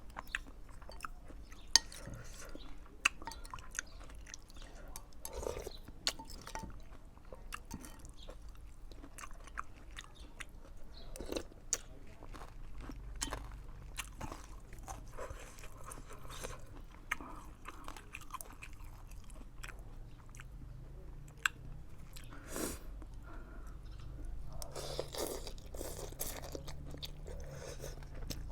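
A person eating close to the microphone: chewing and crunching mouthfuls, probably including daikon radish, with scattered short clicks through the half minute.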